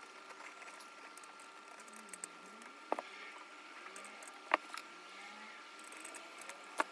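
Wire cutters or strippers snipping and stripping a small wire: three sharp clicks spread over several seconds, over a faint steady high hum.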